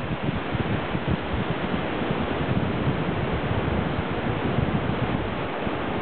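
Wind buffeting the microphone: a steady rushing noise with an irregular low rumbling flutter.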